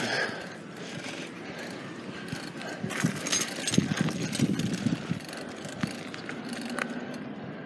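Irregular mechanical clicking and rattling, with a cluster of louder knocks in the middle.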